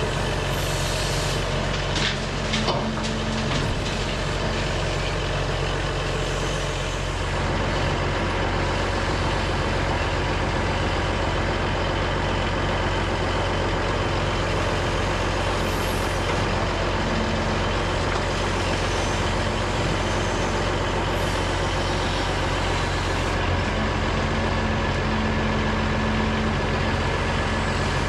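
Diesel engine of earthmoving equipment running steadily under work, with a few sharp knocks about two seconds in.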